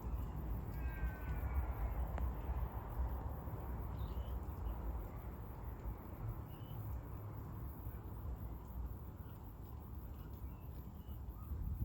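Outdoor suburban ambience: a steady low background rumble, with a drawn-out, crow-like bird call about a second in and a few short faint chirps later.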